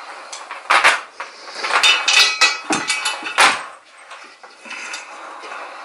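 Metal knocks and clinks from a metal oil rain lamp and its hanging chain as it is handled and lifted. There is one knock about a second in, a run of ringing clatter around two seconds, another loud knock at about three and a half seconds, then it goes quieter.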